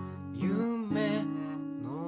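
Acoustic guitar playing chords, with a new strum about half a second in that rings on.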